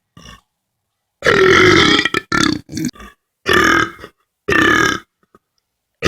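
A person belching loudly several times: a long burp of nearly a second that drops in pitch, a few short broken ones right after, then two shorter burps about a second apart.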